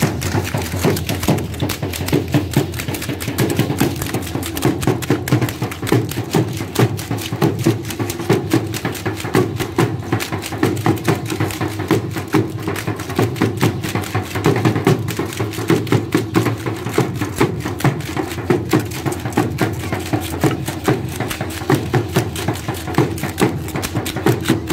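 Matachines dance music: drums beating a steady, fast rhythm, with the clatter of the dancers' tin-soled sandals stamping in step.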